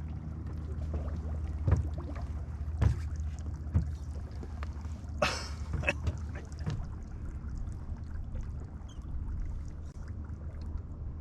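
Boat motor running with a steady low hum, with a few sharp knocks in the first four seconds and a brief rush of noise about five seconds in.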